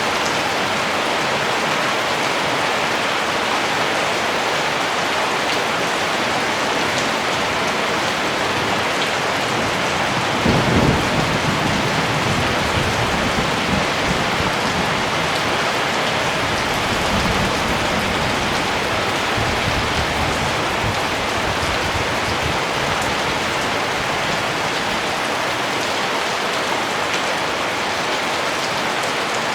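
Steady rain falling, with a low rumble of thunder that starts suddenly about a third of the way in and rolls on for about ten seconds before fading back into the rain.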